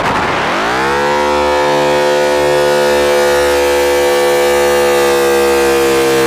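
Elektron Digitone FM synthesizer playing a loud drone: the pitch sweeps up over about the first second, then holds as a steady tone rich in overtones, sagging slightly lower near the end.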